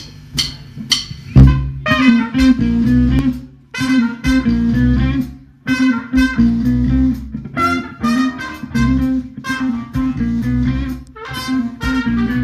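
Live band of trumpet, electric bass, drums and keyboard. A few steady ticks, about two a second, lead into the full band coming in loud about a second and a half in, then playing punchy phrases split by brief breaks, with the trumpet on top of a heavy bass line.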